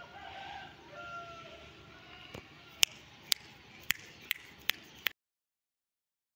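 A series of about seven sharp clicks, roughly two a second, after a few faint short chirps; the sound then cuts off suddenly.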